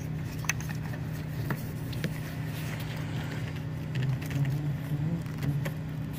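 Small plastic clicks and taps as a wiring connector is handled and pushed onto a camshaft position sensor, over a steady low hum.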